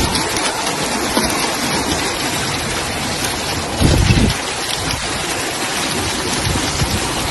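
Heavy rain mixed with hailstones pelting down in a loud, steady, dense patter, with a brief low rumble about four seconds in.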